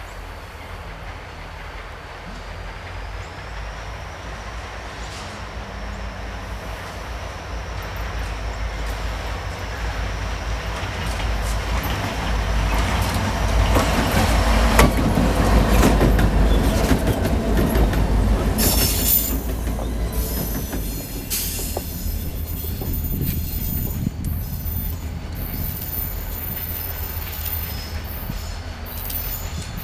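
Train rolling past, its rumble building to a peak about halfway through and then easing off. In the second half the wheels squeal high on the rails.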